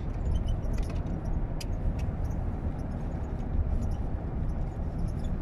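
Road and engine noise inside a moving car's cabin: a steady low rumble with faint small ticks and rattles, and one sharp click about one and a half seconds in.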